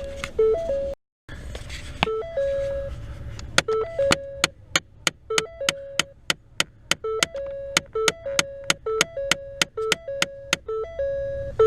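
Music: a simple synthesizer melody over a run of sharp, regular percussive clicks, with a brief total dropout about a second in.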